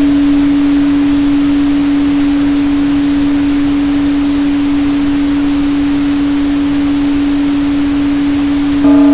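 Steady synthesized 285 Hz hum over an even pink-noise hiss. Near the end it swells louder with a bell-like ring of higher overtones, like a struck singing bowl.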